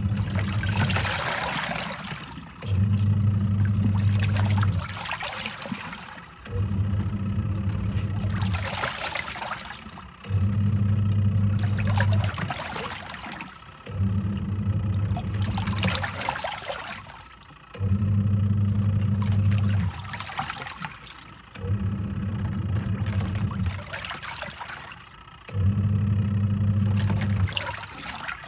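Twin-tub washing machine on its wash cycle: the pulsator motor hums for about two and a half seconds, stops for about a second, then starts again, over and over, reversing each time, with water and clothes sloshing in the tub.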